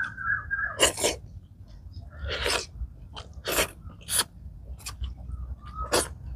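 Close-up eating sounds: about six sharp, wet slurps and lip-smacks, a second or so apart and loudest about a second in, as a man sucks soup-soaked straw mushrooms and rice from his fingers.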